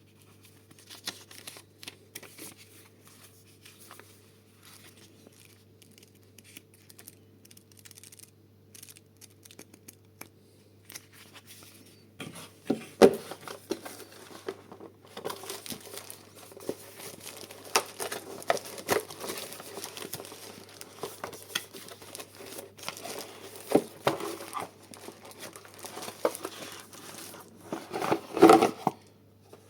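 Paper packaging being handled and unwrapped, crinkling and tearing. It is sparse at first, grows busier about twelve seconds in, and has a louder rustle near the end.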